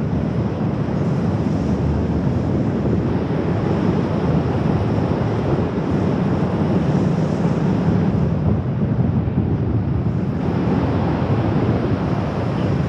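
Freefall wind rushing steadily over the microphone of a GoPro Fusion carried on a wingsuit flight, a dense, even rush weighted to the low end.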